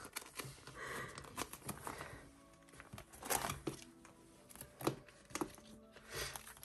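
Plastic photocard binder sleeves crinkling and a sleeve page being turned, with short rustles and clicks as cards are handled, over soft background music.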